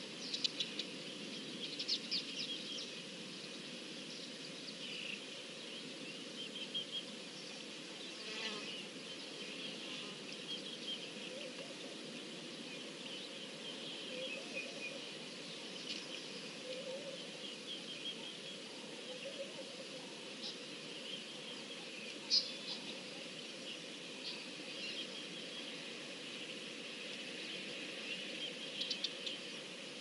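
Outdoor bush ambience: many short, high bird chirps and twitters scattered throughout over a steady high background hiss, with a few lower calls in the middle.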